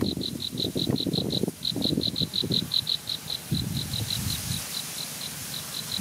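An insect chirping in an even pulse train, about five high-pitched chirps a second with a short break after about a second and a half. Irregular low rumbling runs underneath.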